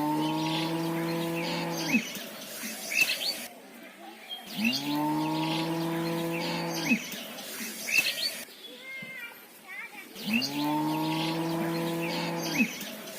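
A cow mooing three times, each a long, steady low moo of about two seconds that rises at the start.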